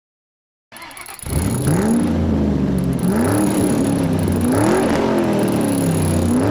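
Dodge Ram pickup engine revved repeatedly through its new Flowmaster 50 Series muffler, each blip of the throttle rising and falling in pitch. It comes in suddenly from silence about a second in.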